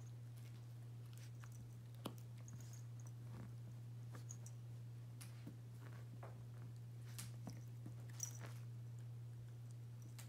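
A Pomeranian gnawing on a chew stick, with faint, scattered clicks and crunches of its teeth on the stick, over a steady low hum.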